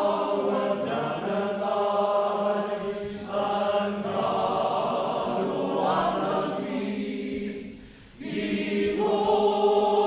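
Welsh male voice choir singing held chords, with a brief break between phrases about eight seconds in.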